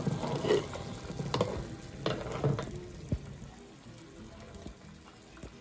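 A ladle stirring simmering beans in a clay pot: wet sloshing with a few knocks of the ladle against the pot in the first three seconds, then it goes quieter.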